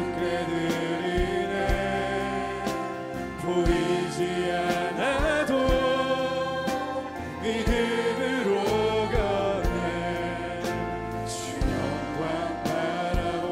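Live church worship band playing a slow contemporary worship song: a male vocalist sings over his acoustic guitar, backed by the band with a steady low beat.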